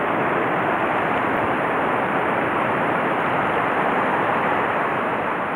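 Steady rush of a shallow river running over rocks, an even hiss with no splashes standing out.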